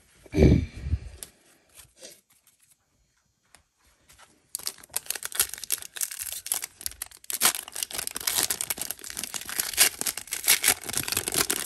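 A 2021 Donruss baseball card pack's wrapper being torn open and crinkled by hand, a dense crackling that starts about four and a half seconds in. A dull thump comes about half a second in.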